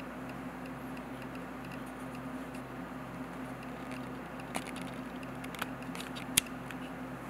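A few small clicks and taps from fingers handling a drone's camera gimbal, with the sharpest click about six seconds in. A steady low hum runs underneath.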